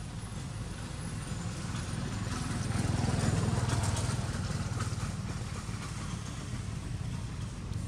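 A motor engine running steadily, as of a motorbike, its low rumble swelling about three seconds in and easing off again.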